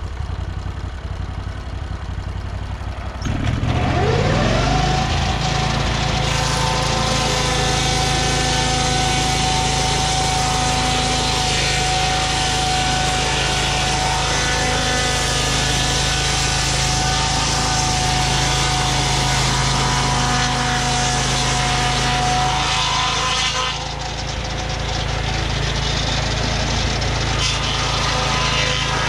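Lucas Mill 618 swing-blade sawmill's gas engine running. A few seconds in it revs up with a rising whine as the circular blade comes up to speed. It then runs steadily at full speed with a high blade whine while sawing through a lodgepole pine log. Near the end the sound drops and eases off, then slowly builds again.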